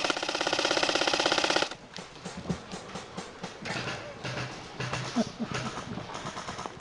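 Airsoft gun firing a long fully automatic burst, a fast even rattle that cuts off suddenly under two seconds in. After it come scattered, quieter irregular pops of other airsoft guns firing.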